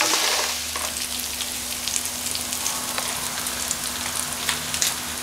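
Onion, pepper and tomato sofregit frying in a large paella pan: a steady sizzle with scattered crackles and spits, a little quieter after the first half-second.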